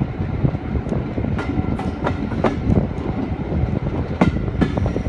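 A "Thumper" diesel-electric multiple unit running along the track, heard from an open carriage window: a steady rumble from the train, with the wheels clicking and knocking at irregular intervals over the rails.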